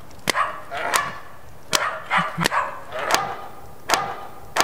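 A dog barking repeatedly at a steady pace, about one bark every three quarters of a second.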